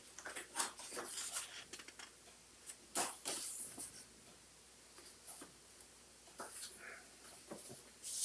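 Paper and card inserts being handled and shuffled: scattered soft rustles and light taps, with a sharper rustle about three seconds in.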